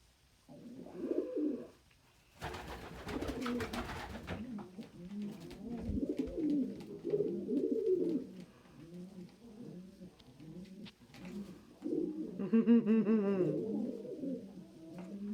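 Domestic pigeons cooing over and over, several coos overlapping, in a squabble over a nest box. A short burst of rustling comes about three seconds in, and a higher call near the end.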